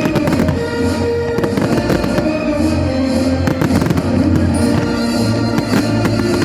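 Fireworks going off: repeated bangs and crackles in quick succession throughout, over music with long held notes.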